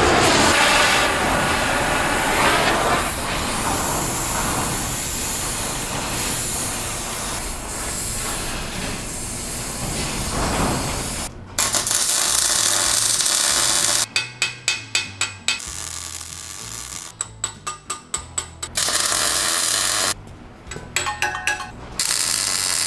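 Gas torch flame hissing steadily as it preheats a cast axle housing before welding. About halfway through, this gives way to music with a quick pulsing beat in three short runs.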